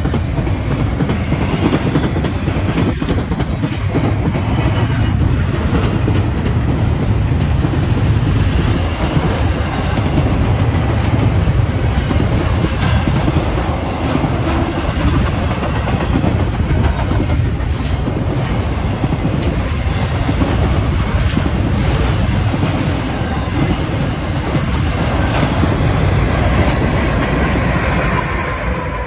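Double-stack intermodal freight train rolling past at close range: the steady rumble and clickety-clack of the well cars' wheels over the rails.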